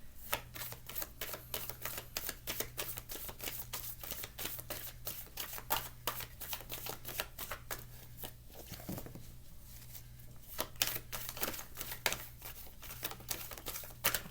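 A deck of oracle cards being shuffled by hand: a fast, continuous run of small clicks and snaps of card on card. A steady low electrical hum sits underneath.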